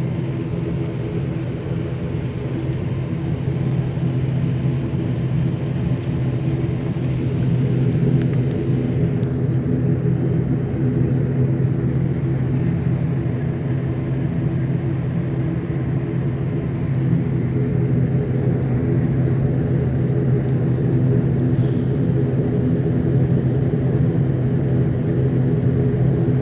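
Steady drone of an ATR turboprop airliner's engines and propellers, heard from inside the cabin while the plane taxis. It swells slightly about a third of the way through.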